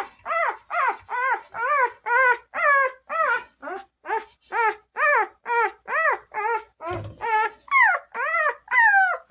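Newborn Bernese Mountain Dog puppy crying: a steady series of short, high calls, each rising and falling in pitch, about two or three a second. A low thump about seven seconds in.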